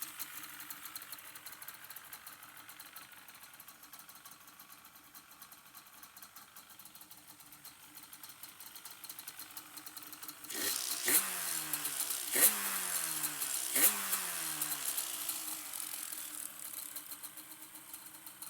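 Yamaha Banshee's 350 cc twin-cylinder two-stroke engine, faint and low at first, comes up about ten seconds in and is revved three times in quick succession, the pitch falling back after each blip.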